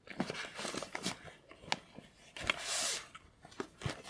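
Rustling and small clicks and knocks of items being handled and packed into a nylon crossbody purse, with a brief rush of fabric noise a little past halfway.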